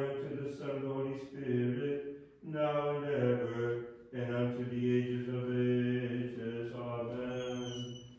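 Liturgical chanting at an Orthodox Vespers service: voices singing a hymn in long held notes, phrase by phrase, with short breaks between phrases.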